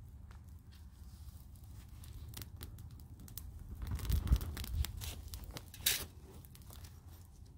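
Wood campfire crackling with scattered sharp pops as partly damp wood burns, over a steady low rumble. There is a louder crackly stretch about four seconds in and a sharp pop about a second later.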